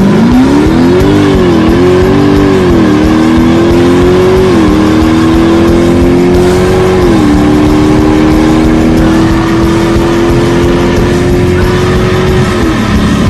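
Dodge Hemi V8 muscle car accelerating hard at full throttle, the engine note climbing and dropping sharply at each of four upshifts, then holding a long slow climb in top gear before the throttle is lifted near the end.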